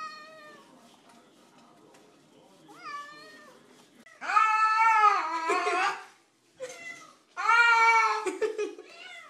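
Cats meowing in protest at being bathed. There is a short meow at the start and another about three seconds in, then two loud, long drawn-out meows from about four seconds in, with short meows between and after.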